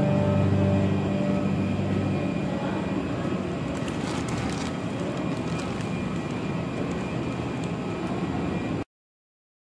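Steady airport apron noise of jet aircraft running, after guitar music fades out in the first couple of seconds. The sound cuts off suddenly shortly before the end.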